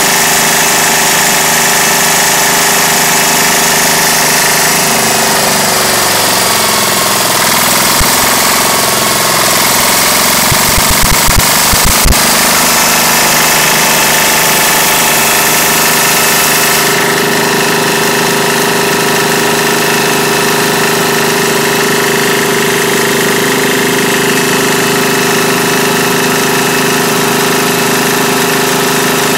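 Hatz E95 air-cooled diesel engine running with its steady diesel clatter. Its note wavers in the middle, with a few sharp knocks, then settles into a steady, slightly different speed a bit past halfway.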